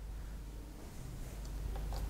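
Quiet room tone with a steady low hum, and a few faint ticks in the second half.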